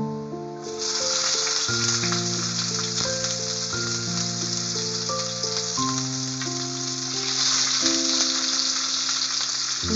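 Sliced onions hitting hot oil in a kadai, with a sudden loud sizzle about a second in that carries on as a steady frying hiss. Background music plays underneath.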